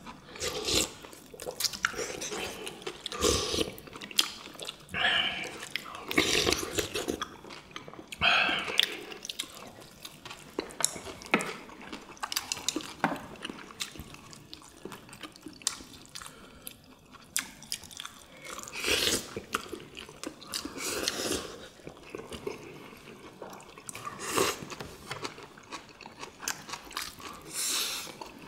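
Several people eating with chopsticks, heard close up: irregular chewing and biting sounds, with chopsticks clicking against bowls and plates.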